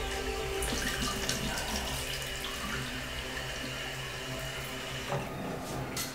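Water running from a bathroom mixer tap over a hand, a steady splashing hiss that stops about five seconds in.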